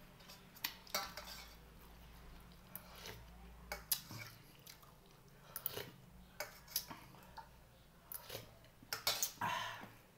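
Cutlery clinking and scraping against ceramic plates and bowls while eating, in irregular sharp clicks with chewing between them; the clinks come thicker near the end.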